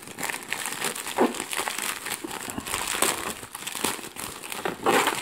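White plastic poly mailer bag crinkling and crackling as it is crumpled and pulled at by hand to tear it open.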